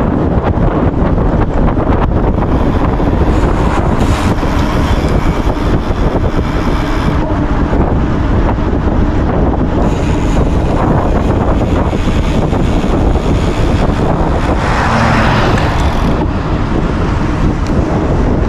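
Loud, steady wind buffeting the microphone of a camera on a moving gravel bike.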